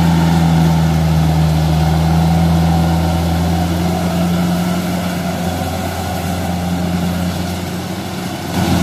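Rice combine harvester's diesel engine running with a steady drone while working in deep, waterlogged mud; it fades gradually and gets louder again near the very end.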